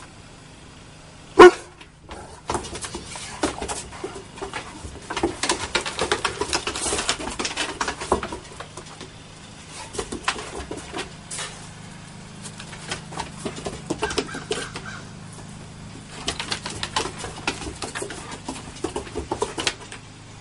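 Two dogs playing rough on a wooden deck: one loud bark about a second and a half in, then bursts of claws scrabbling on the deck boards and play noises that come and go.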